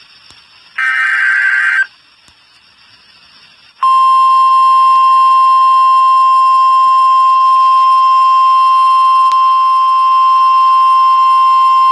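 About a second in, a one-second burst of EAS header data tones. After a short gap, NOAA Weather Radio's 1050 Hz warning alarm tone starts about four seconds in as a single loud, steady tone: the signal that a new warning, here a flash flood warning, is about to be broadcast.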